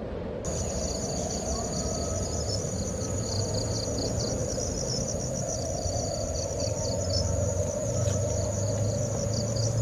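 Insects chirping in a steady high-pitched chorus with quick pulsing, over a steady low background rumble. It starts about half a second in.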